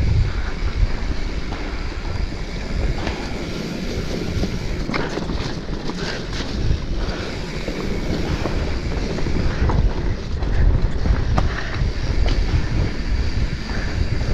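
Wind buffeting the microphone as a mountain bike rolls over a rocky trail, with scattered clicks and knocks from the bike and its tyres on the stones.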